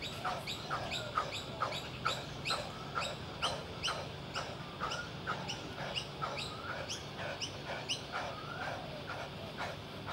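A man breathing hard and fast through rapid push-ups, with short sharp breaths at about three a second.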